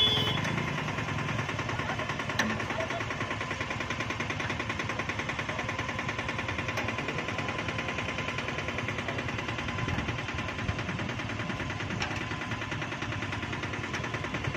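Steady, fast mechanical rattling, with one light knock about two seconds in.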